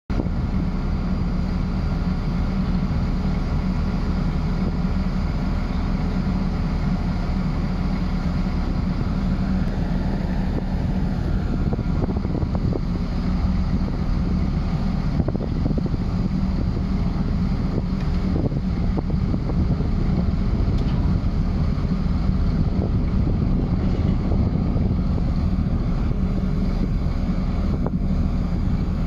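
Diesel engine of a mobile crane running steadily while hoisting a steel frame, with wind noise on the microphone.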